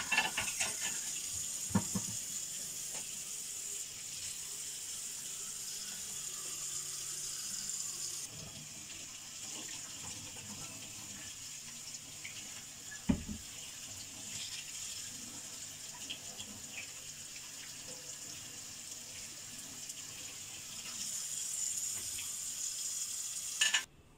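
A steady hiss, strongest in the high treble, with a sharp knock about two seconds in and another about thirteen seconds in. It cuts off suddenly just before the end.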